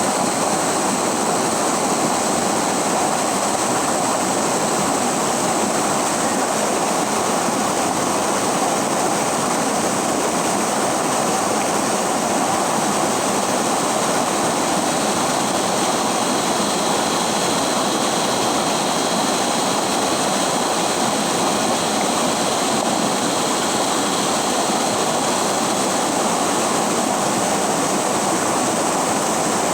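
River water flowing: a steady, unbroken rush.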